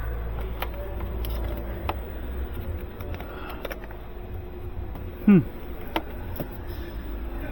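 Small clicks and knocks of parts being handled and fitted by hand, over a steady low hum. About five seconds in there is one loud, short squeak that falls in pitch.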